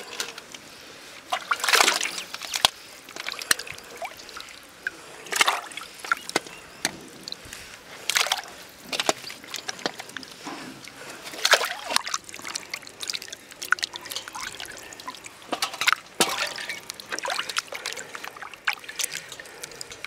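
Water sloshing and splashing in a metal basin as raw chicken drumsticks are rubbed and washed by hand, in irregular splashes and trickles.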